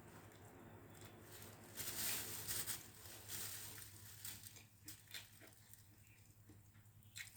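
Eating sounds of pancit noodles: wet mouth and chewing noises with a few short clicks, loudest about two seconds in.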